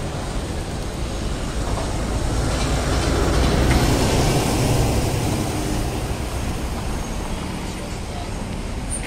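A vehicle passing in the street, its noise swelling to a peak about four seconds in and then fading, over a low rumble of wind on the microphone.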